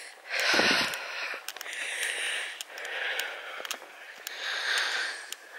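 A walker's breathing close to the microphone, one hissy breath about every second and a half, with a dull thud about half a second in and scattered light ticks.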